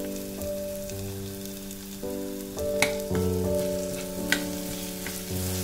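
Ginger-garlic paste frying with onion-tomato masala in an enamelled pan, a faint sizzle, with a metal spoon stirring and knocking the pan twice, near the middle and about two-thirds through. Background music of sustained chords plays over it and is the loudest sound.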